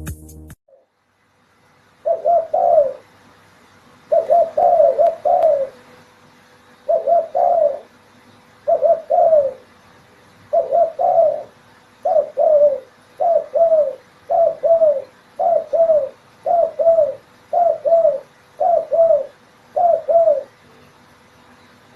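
Spotted dove (derkuku) cooing: a long run of short, repeated coo phrases, about one a second, starting about two seconds in. Electronic music cuts off just before the cooing begins.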